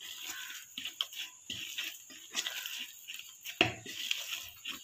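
A hand squeezing and kneading soft flour dough in a metal bowl: irregular squishing and fingers scraping against the metal, with one sharper knock about three and a half seconds in.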